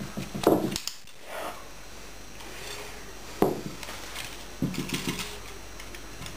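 Two sharp clicks from a handheld dog-training clicker, about three seconds apart, marking the puppy's try at the plate. Short low rattling sounds follow near the end.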